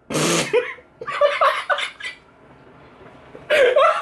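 A man's laughter: choppy bursts about a second in, then a quiet moment before he breaks into loud laughter near the end. A short noisy blast comes at the very start.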